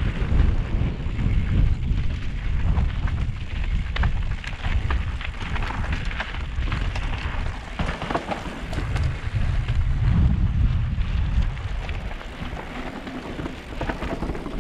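Mountain bike riding fast down a dirt trail: wind buffets the microphone in a heavy, uneven rumble, over a steady hiss of tyres on dirt and gravel with frequent clicks and rattles from the bike.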